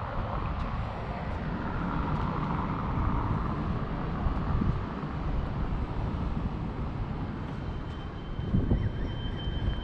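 Outdoor street ambience: wind rumbling on the microphone over road traffic, with a vehicle passing a couple of seconds in. A faint, thin, steady high whine begins near the end.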